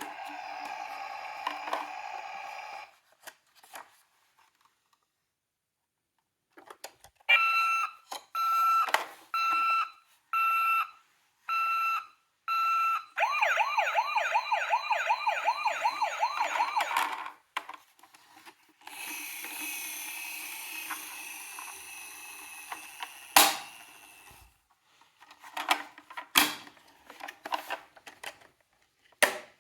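Battery-powered toy emergency vehicles' electronic sirens: a beeping tone repeating about once a second for several seconds, then a fast warbling siren. Sharp plastic clicks and knocks follow near the end, one of them loud.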